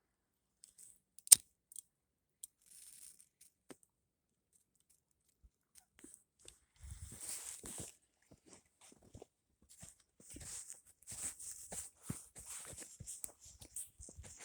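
Faint, intermittent rustling and tearing sounds, with one sharp click about a second in.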